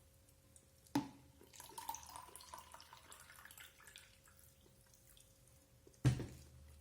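Tableware during a meal: a sharp clink about a second in that rings on briefly, then softer small clicks, and a heavier knock near the end.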